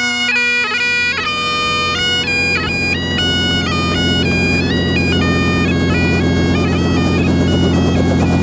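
Bagpipes playing a tune: a melody steps over steady droning notes. A low throbbing sound builds beneath it toward the end.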